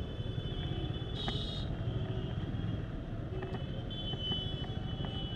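Yamaha R15 V3 motorcycle's single-cylinder engine running steadily under way, with road noise. A short high-pitched tone sounds about a second in.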